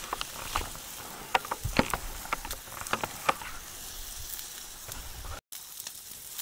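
Thick ribeye steaks sizzling on a steel grill grate over campfire coals: a steady hiss with many sharp pops and crackles, thickest in the first few seconds and sparser after.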